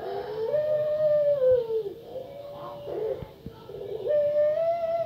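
Female puter pelung (long-cooing Barbary dove) giving long, drawn-out, howl-like coos: three in a row. The first and last are each held for nearly two seconds and drop in pitch at the end, with a shorter one between them.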